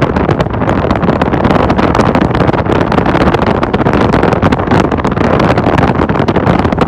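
A Shin-Keisei 80000-series electric train running past close by: a loud, steady rumble of wheels on the rails.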